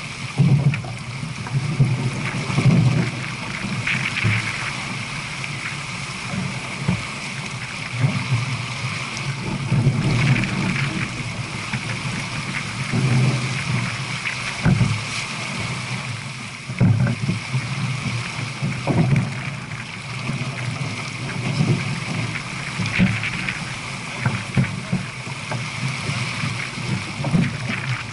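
Water rushing and splashing along the hull of a J/24 keelboat sailing downwind at speed, over a low, gusty rumble of wind on the microphone.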